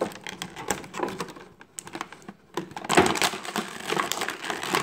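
Clear plastic blister packaging crinkling and crackling under the hands, a run of crackles, a brief lull in the middle, then denser, louder crackling from about three seconds in.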